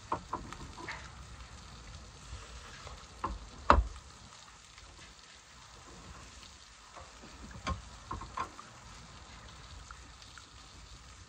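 Eating at a table: a metal spoon clicking and scraping against a paper cup and bowls, with a few sharp knocks, the loudest about four seconds in, over a faint steady hiss.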